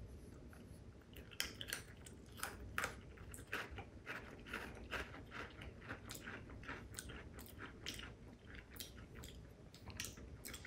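Sakura Pocky, thin white-chocolate-coated pretzel sticks, being bitten and chewed: a run of irregular sharp crunches.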